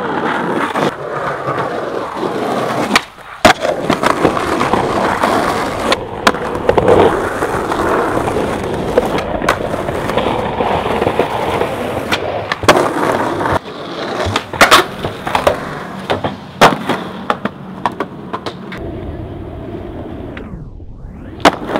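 Skateboard wheels rolling over street pavement, with sharp clacks of the board about nine times: tail pops and landings of tricks.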